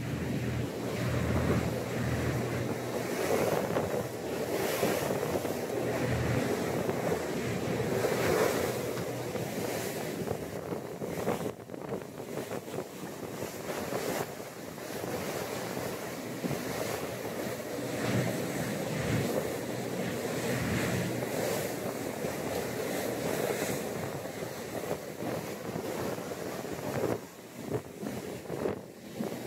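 Wind buffeting the microphone over the rush of the sea along a Bayliner 4788 motoryacht's hull as it runs through lumpy swells. The noise swells and eases in irregular surges.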